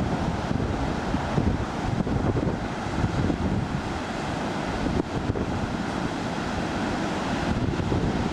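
Strong wind buffeting the microphone over the steady rush of rough storm surf breaking on a Gulf of Mexico beach.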